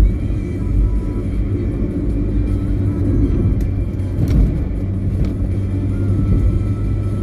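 Steady low rumble of a car driving on an asphalt road, heard from inside the car, mixed with background music. A brief swell of noise about four seconds in as oncoming trucks pass.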